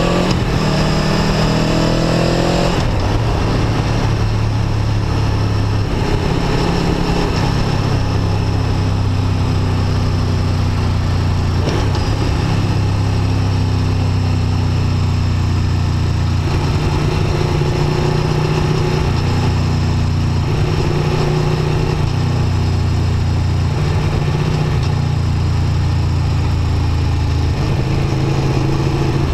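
Aprilia Tuono V4 1100 RR's 1077 cc V4 engine pulling under throttle on the move, its note rising at the start and then running fairly steady at cruising revs, heard from on board with wind rush.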